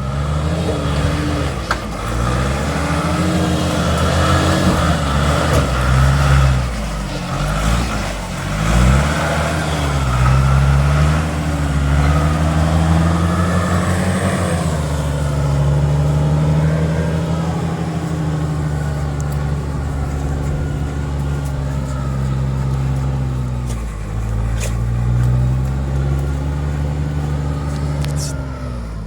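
Off-road vehicle's engine working hard up a steep track climb, its revs rising and falling repeatedly over the first half, then holding steadier under load with a brief dip a few seconds before the end. A few sharp clicks come near the end.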